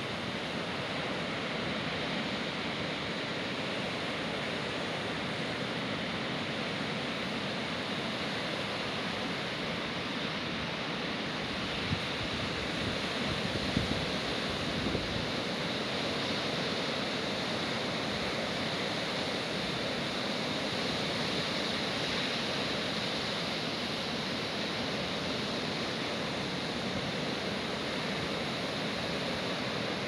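Lake waves breaking on a sandy shore in a steady wash, with wind. A few gusts buffet the microphone with a low rumble about halfway through.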